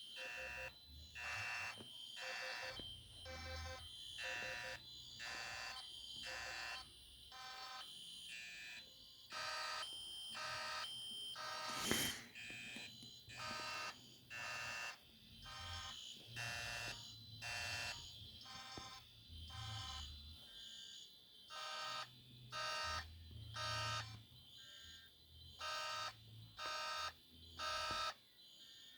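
Several fire alarm horns sounding together in repeated short pulses that don't line up with each other, over a steady high tone. A single sharp click comes about twelve seconds in.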